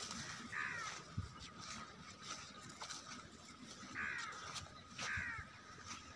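Harsh bird calls, three short ones: one about half a second in, then two about a second apart later on.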